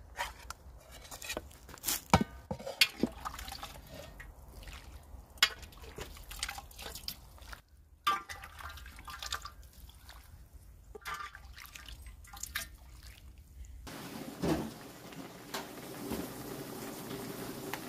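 Broth dripping and splashing back into a cast-iron cauldron as cooked duck pieces are ladled out into a wok, with sharp clinks and scrapes of the metal ladle against the iron pots. About fourteen seconds in, this gives way to the steady sound of a pot of broth simmering on a gas burner.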